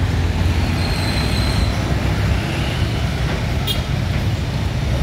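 Steady low rumble of road traffic and vehicle engines, with a faint brief high tone about a second in and a short click near the end.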